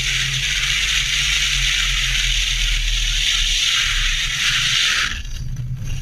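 Wind and road noise from a car driving fast, with the engine's low drone underneath. About five seconds in, the steady rush breaks into rough, uneven scraping noise as the car runs off the pavement into the dirt.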